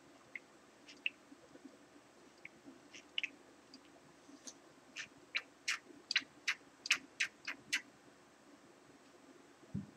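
Hand plunger oiler on a horizontal mill's arbor housing, pushed repeatedly: a few scattered faint clicks, then a quick run of about ten sharp clicks at roughly three a second. Oil is not yet getting through. A low thump near the end.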